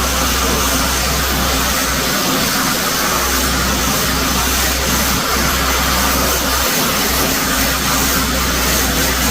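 Pressure washer running steadily: a low hum under the hiss of the high-pressure water spray.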